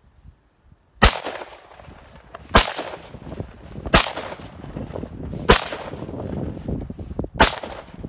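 AR-15-style semi-automatic rifle firing five single shots, spaced about one and a half seconds apart. Each crack is followed by a rolling echo.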